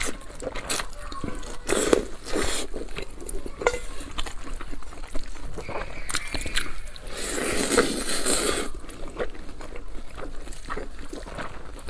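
Close-miked eating sounds: chewing, crunching and wet mouth clicks, with a longer wet stretch about seven to eight and a half seconds in.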